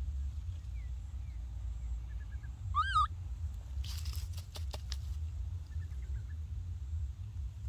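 Outdoor ambience over a steady low rumble, with one short, high, wavering animal call about three seconds in, then a quick run of sharp clicks and crackles a second later and a few faint chirps.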